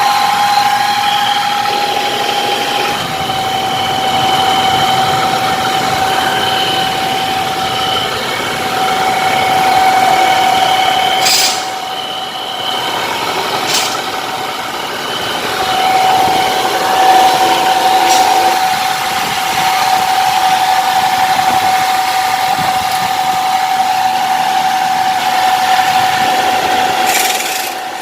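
Hyundai Santa Fe transfer case running with a steady whining hum, its pitch shifting slightly a few times, with a few brief clicks. The noise points to a worn bearing inside the transfer case.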